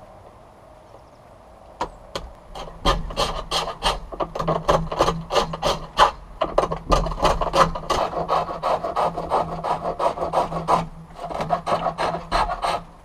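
Pole lathe turning a wooden honey dipper: a chisel cutting the spinning blank in a fast, regular run of scraping strokes, two or three a second, with a brief pause about two seconds before the end.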